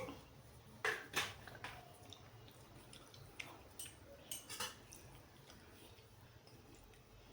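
Wet eating sounds: a run of squishy smacks and sharp clicks, several of them loud in the first few seconds, thinning out over the last two seconds.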